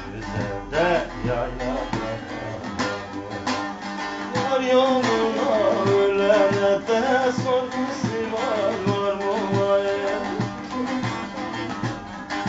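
Bağlama (long-necked Turkish saz) played with a plectrum: a folk melody over steady picked strokes.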